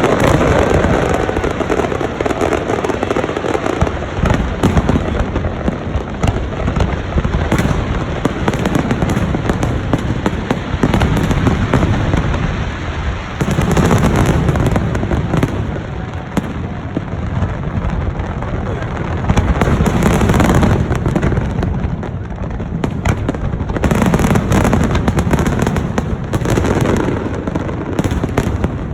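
Fireworks display: a dense, unbroken run of bangs and crackling shells, swelling into louder volleys every few seconds.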